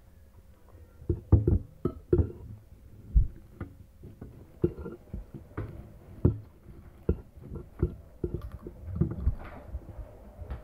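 Irregular knocks and clicks of someone eating fried rice with a spoon from a ceramic bowl: spoon hitting and scraping the bowl, with mouth sounds of chewing.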